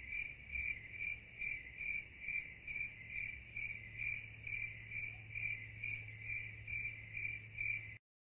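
Cricket chirping sound effect, a high chirp repeating evenly about twice a second, stopping suddenly near the end: the comedy cue for a joke falling flat into awkward silence.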